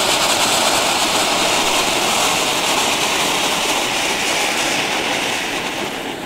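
Pyro Art Vulcan Fantasy ground fountain firework spraying sparks with a loud, steady hiss that starts to die away about five seconds in as the fountain burns down.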